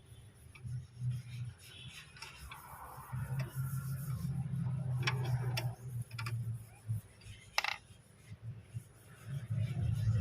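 Metal clicks and clinks of a hex key turning and loosening an Allen bolt on a diesel fuel filter housing, with three sharper clicks in the second half, over a low background hum.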